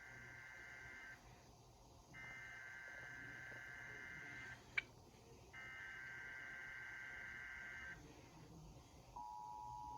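Emergency Alert System SAME header: three bursts of warbling digital data tones, each about two seconds long with a short gap between them. A steady two-tone EAS attention signal begins about nine seconds in. Together they open a required monthly test of the Emergency Alert System. A single sharp click falls between the second and third bursts.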